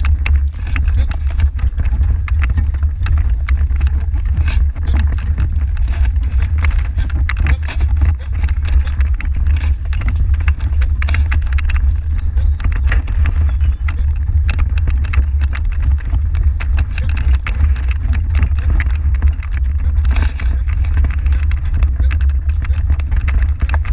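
Horse-drawn marathon carriage rattling and jolting across grass at speed, heard from a camera on its metal rear step: a heavy steady low rumble of wind and vibration on the microphone, with many irregular clicks and knocks from the carriage.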